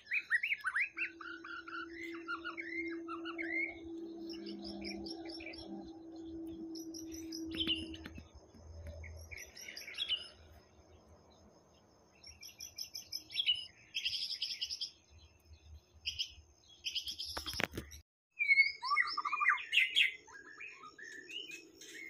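White-rumped shama singing: a long run of varied whistled and chirping phrases, cut off for a moment about three quarters of the way through.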